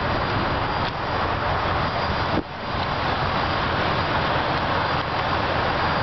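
Steady rushing roar of interstate highway traffic, a continuous noise that dips briefly about two and a half seconds in.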